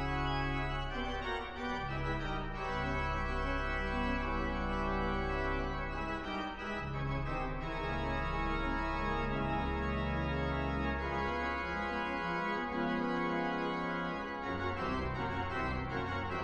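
Slow film-score music: sustained, organ-like held chords over a deep bass, shifting to a new chord every few seconds.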